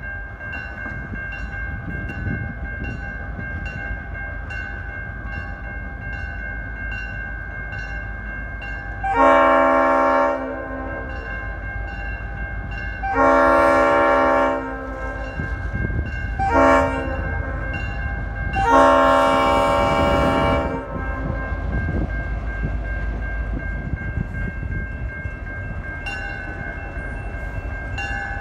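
Leslie RS5T-RRO five-chime air horn on an EMD GP38 diesel locomotive sounding the grade-crossing signal: long, long, short, long, starting about nine seconds in. Under it, the locomotive's diesel engine rumbles as it approaches, and a crossing-signal bell rings about twice a second.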